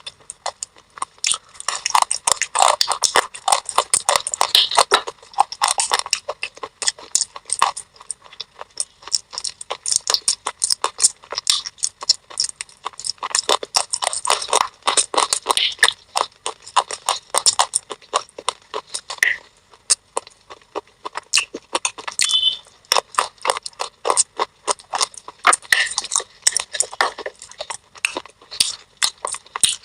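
Close-up crunching and chewing of thin baked clay pot pieces coated in white paste. It is a fast, irregular run of crisp cracks and snaps that goes on throughout.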